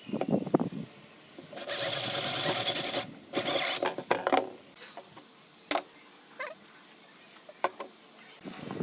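A small power tool runs in two short bursts, the first about a second and a half long and the second shorter, followed by scattered knocks and clicks of wood being handled.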